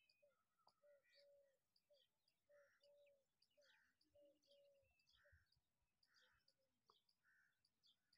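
Very faint birdsong: a dove cooing in a repeating run of short and drawn-out low notes, with small birds chirping higher up.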